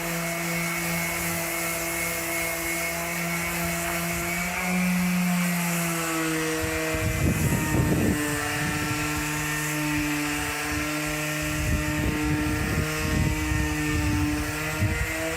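Electric sander motor running at a steady whine, and from about seven seconds in, rough scraping bursts as it sands down the bare steel bumper.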